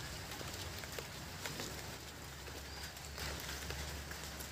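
Fingers squishing and mixing rice with chicken curry on a steel plate, with soft wet ticks, over a steady hiss of light rain.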